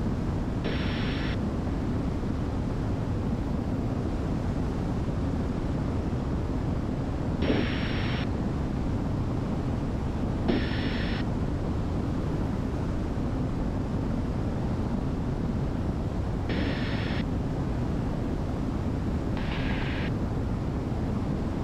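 Steady drone of the Diamond DA62's twin turbo-diesel engines and propellers in cruise, heard from inside the cabin. Five short, higher-pitched hissy bursts come and go through it.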